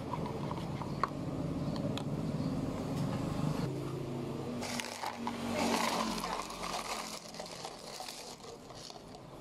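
Ice cubes tipped from a plastic cup into an iced matcha latte in a plastic cup, a noisy clattering rush lasting a couple of seconds about five seconds in. Before it a low steady rumble, like an engine running nearby, fades out.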